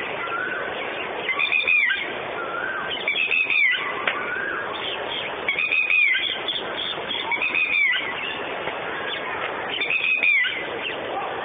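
A bird calling over and over, five short calls about two seconds apart, each a high note that rises and then falls away, with fainter lower notes in between, over a steady background hiss.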